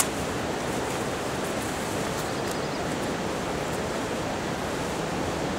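A steady, even rushing noise, like running water or wind, with a short sharp noise at the very start and a few faint ticks and rustles as a textile motorcycle jacket is handled.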